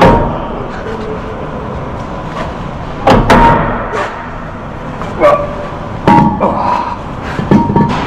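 Heavy steel clanks from a bus's wheel hub being worked off the axle stub: five or six sharp metal knocks, each with a short metallic ring, the first at the very start and the rest coming in clusters over the last five seconds.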